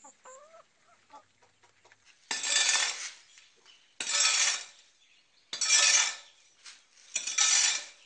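A hoe scraping and pushing through mortar on a concrete slab, four strokes about a second and a half apart. Faint chicken clucks are heard just before the first stroke.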